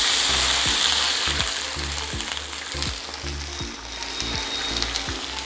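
Water poured into a hot oil tempering of mustard seeds and curry leaves, sizzling hard at first and then dying down.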